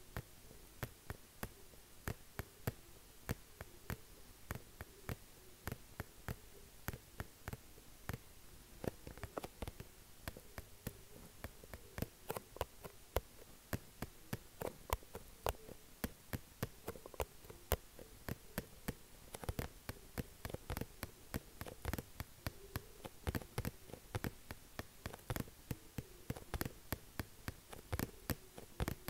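Quick, uneven tapping on a hard surface, several sharp taps a second, over a faint wavering hum.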